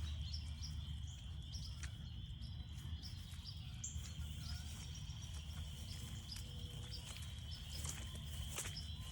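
Spring frog chorus: a steady high trill with many short, high peeps scattered over it, and a low rumble underneath. A couple of faint footsteps sound on the trail.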